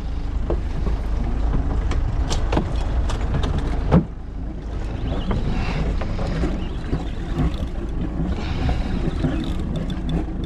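Open-air noise on a small fishing boat at sea: a steady low rumble of wind and water, with a few sharp clicks and knocks of tackle being handled over the first four seconds. About four seconds in the sound changes abruptly to a softer hiss.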